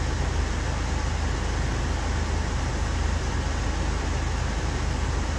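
Steady low rumble and hiss of a car's cabin, engine and road noise heard from inside the vehicle.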